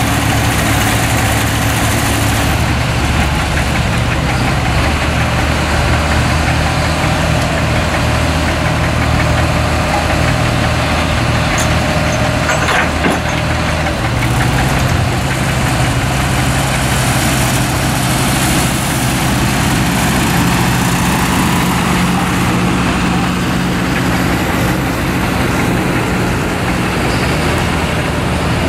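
Tractor engines idling steadily, the low engine note shifting in pitch a few times. A short click sounds about halfway through.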